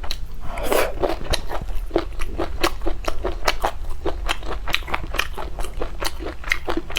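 Close-miked chewing of lemon chicken feet: a quick, steady run of crisp crunches and wet clicks, several a second.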